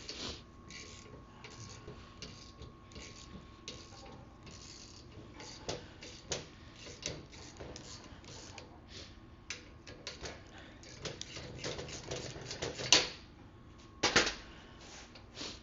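Irregular clicks and clinks of small metal parts being handled and set down on a workbench, with two louder knocks near the end.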